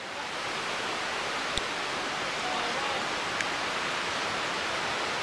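Steady outdoor background hiss with no train passing, and two faint clicks, one about a second and a half in and another about three and a half seconds in.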